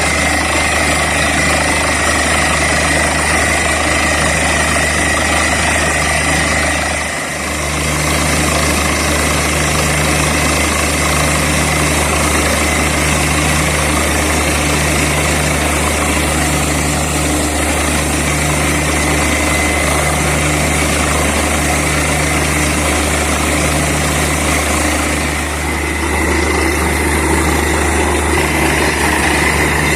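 Borewell drilling rig running under power: a loud, steady engine-and-machinery drone with a slow, regular pulsing. It dips briefly in loudness twice.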